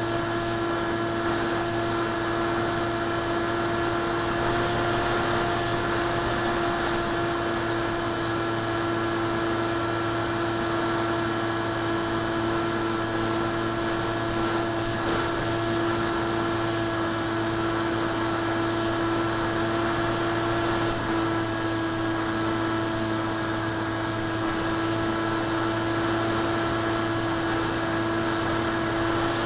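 Electric motor and propeller of a ParkZone Icon A5 RC plane in flight, heard from its onboard camera: a steady whine at constant pitch over a rush of wind noise.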